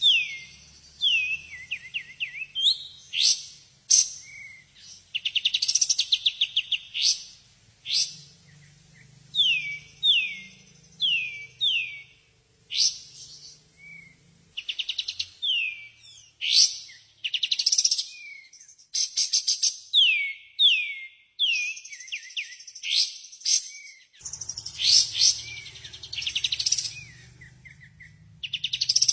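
Cucak ijo (green leafbird) singing a loud, varied song: repeated downward-sweeping whistles alternating with fast rattling trills and sharp chirps.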